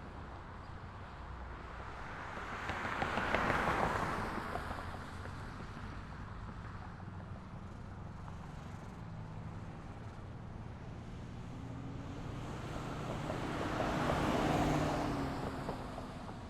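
Street traffic ambience: a steady low rumble of traffic, with two vehicles passing close by, about three seconds in and again near the end, each swelling and fading over a few seconds.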